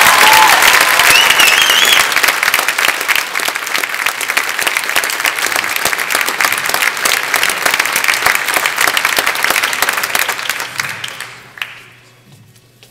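Audience applauding at the end of a choral song, with a rising whoop from the crowd about a second in; the clapping thins out and dies away around eleven seconds in.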